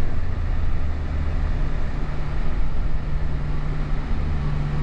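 Steady engine drone and road noise inside the cab of a four-wheel-drive vehicle towing a trailer up a snowy hill.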